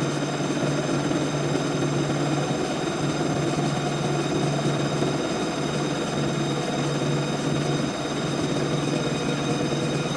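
CNC vertical milling machine running steadily through a finishing pass: a constant spindle hum with fixed high-pitched whine tones over an even machining noise.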